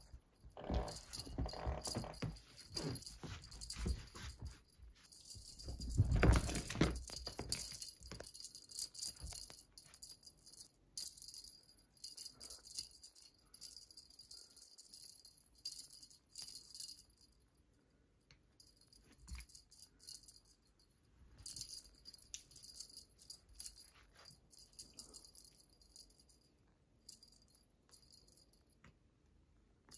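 A cat wand toy rattling and jingling as it is jerked about on its string, in long spells with short pauses. There are thumps of a cat pouncing and landing, the loudest about six seconds in.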